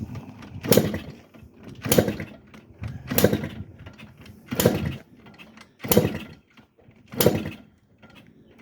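Yamaha Blaster's two-stroke single being kick-started over and over, six kicks about one every second and a half, without catching. The engine won't fire after a fresh top-end rebuild, which the owners suspect may be a failing TORS unit giving poor spark.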